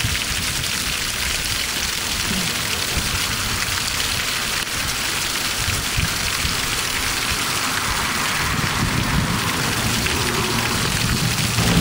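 Spring water falling over rocks and splashing into a shallow pool: a steady splashing hiss.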